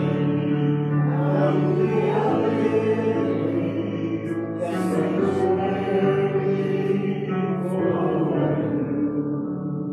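A congregation singing a slow sung call to worship with a man's voice among them, in long held notes with music under it; the last phrase starts to die away near the end.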